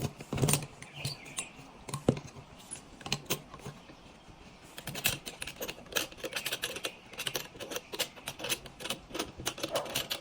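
Small stainless steel sanitary fittings being handled: a run of light, irregular clicks and taps of metal parts knocking together, sparse at first and coming thick and fast from about halfway through.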